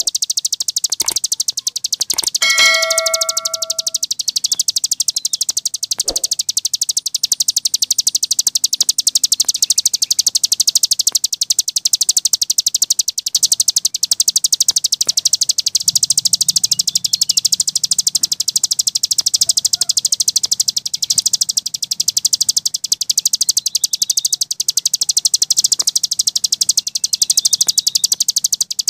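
Mountain tailorbird (cici gunung) song: a continuous, very fast, high-pitched chatter of notes. A brief steady whistled tone sounds about three seconds in.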